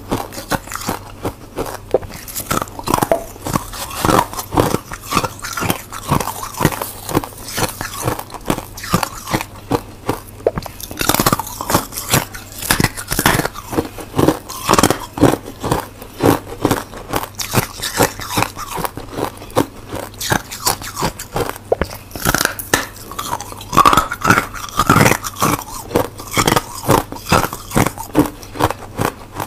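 Biting and chewing reshaped freezer frost and yellow-tinted ice: a dense run of crisp crunches.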